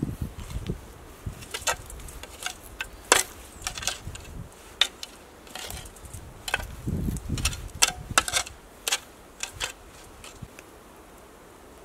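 A long-handled metal shovel scraping and pushing loose soil, in irregular sharp scrapes and small knocks with a few duller thuds about seven seconds in, as earth is heaped over an underground oven pit. The scraping stops near the end.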